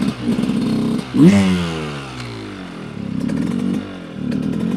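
Dirt bike engine on a trail. It is revved sharply about a second in, then its pitch falls away as the throttle closes, and it picks up again into a steady run near the end.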